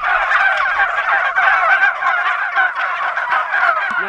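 A large flock of domestic turkeys gobbling and calling all at once, many overlapping warbling calls with no break.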